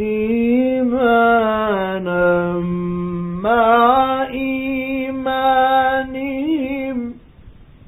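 A male reciter chanting the Quran in the ornate mujawwad style, drawing out one long phrase with melismatic turns and held notes. The voice stops about seven seconds in, leaving a faint hiss.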